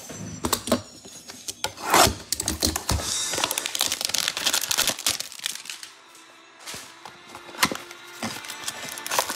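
Trading cards being handled and slid into plastic card sleeves: rubbing and scraping with many sharp clicks and taps, busiest in the first half.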